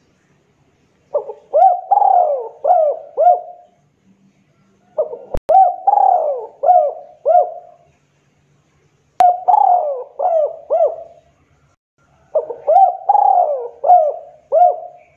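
Spotted dove cooing: four song phrases, each a quick run of about five coos, repeated roughly every four seconds.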